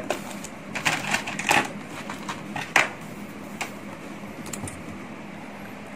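A few light clicks and taps of plastic packaging and model parts being handled, scattered over the first few seconds over a quiet room background.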